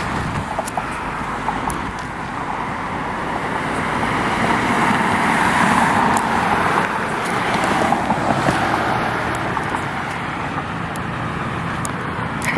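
Road traffic: a car passing close by, its engine and tyre noise swelling to a peak about halfway through and then fading.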